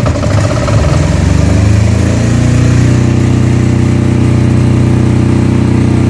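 Fujimoto FJ6500E 6.5 kVA silent diesel generator started with its electric starter. The engine runs up unevenly, then settles about two seconds in to a steady run.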